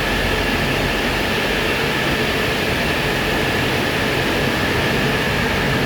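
Cooling fans of many Bitcoin ASIC miners running together: a loud, steady rushing drone with a faint steady high whine on top.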